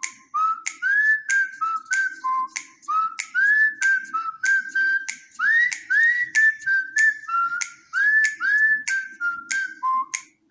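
A preset ringtone of a Huawei MediaPad T3 8 tablet playing a whistled melody: a string of short, bright notes, many sliding up in pitch.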